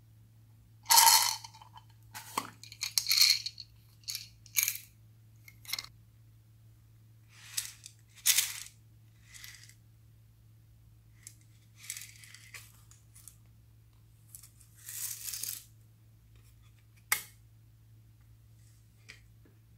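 Small lidded novelty containers, a round plastic tub and a flat box, being handled and opened: a string of short clicks, taps and scraping rustles at uneven intervals. The loudest comes about a second in, and there is a sharp single click near the end.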